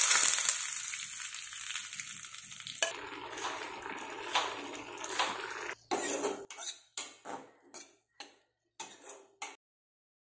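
Hot oil tempering with dried red chillies poured onto beetroot pachadi, sizzling loudly and fading over a few seconds. Then several short, separate bursts of cooking sound follow, stopping near the end.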